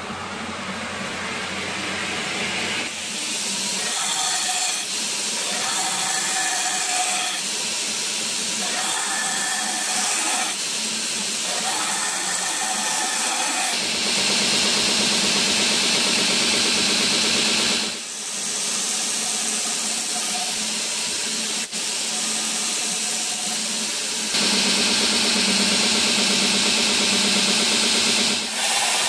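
Belt grinder coming up to speed, then running steadily while a 1095 steel knife blade held in a jig is ground against the abrasive belt to cut the primary bevel. There are several grinding passes: short ones in the first half, then two longer, louder passes of about four seconds each near the middle and near the end.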